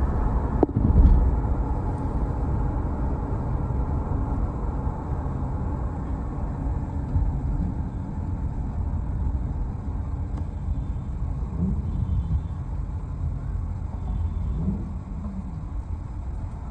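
Car running and moving, heard from inside the cabin: a steady low road-and-engine rumble, with a sharp knock about a second in.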